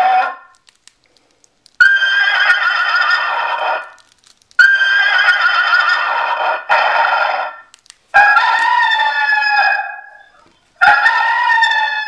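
Preloaded barnyard animal sounds played one after another through a programmable electronic car horn's loudspeaker, triggered from its wireless remote. Four separate calls of two to three seconds each, starting about two seconds in, with short silent gaps between them.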